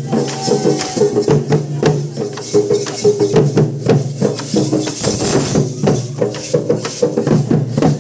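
Festival procession drumming: several round frame drums beaten in a fast, dense, unbroken rhythm, with a pitched melody running underneath.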